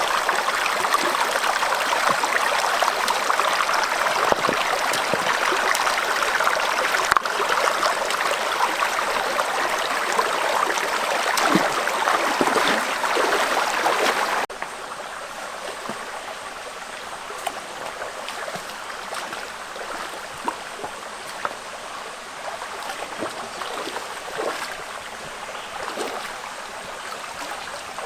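Stream water running and trickling steadily, with small splashes here and there. The level drops suddenly about halfway through, then continues quieter.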